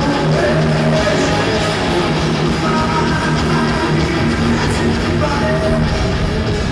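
Rock music with guitar playing as a soundtrack, steady and loud.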